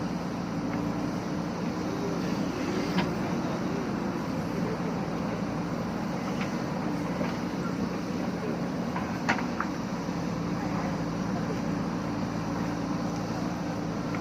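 JCB backhoe loader's diesel engine running at a steady pitch. A sharp knock comes about three seconds in and a louder one about nine seconds in.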